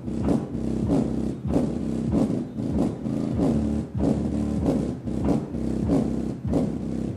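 Infinity Primus 1270 12-inch subwoofer in a large enclosure playing a bass test track. Deep, heavy bass runs under a rhythmic pattern of quick falling pitch drops, about two a second.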